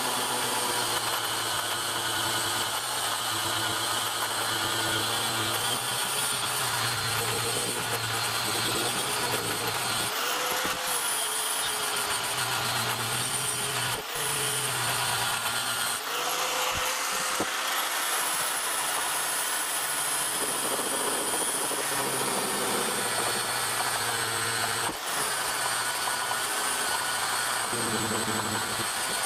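Angle grinder running against the steel of an old axe head, grinding off rust and throwing sparks. A steady high whine whose pitch sags and recovers as the disc is pressed into the metal and eased off, with a few brief breaks.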